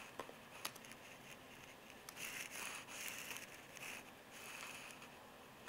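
Faint background hiss with a few soft, sharp computer-mouse clicks, the first two early and close together.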